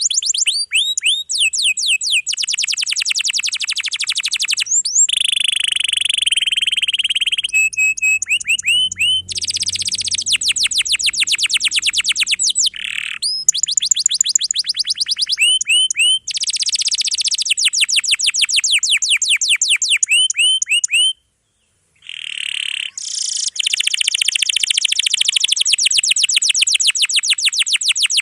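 Domestic canary singing a long, dense song of rolled trills: rapid runs of repeated sweeping notes that switch to a new phrase every few seconds, with a brief break about three-quarters through.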